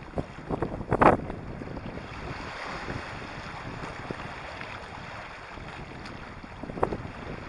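Sea waves breaking and washing over a pebble beach, with wind buffeting the microphone. There is a sharp louder burst about a second in and another near the end.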